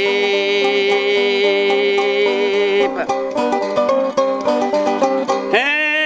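Sasando gong, the Rotenese bamboo tube zither in a lontar palm-leaf resonator, plucked in a quick run of notes. A man's voice holds one long sung note that breaks off about three seconds in, then scoops up in pitch into a new held note near the end.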